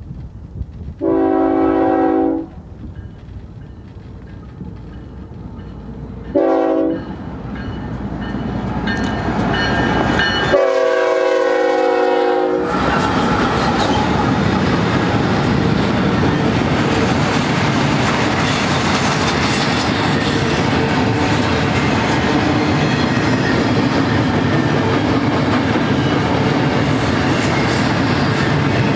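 A BNSF GE diesel locomotive's air horn sounds three blasts, long, short, then long, as the train approaches. Then the double-stack intermodal train rolls past, growing louder and then holding at a steady rumble and clatter of wheels on the rails.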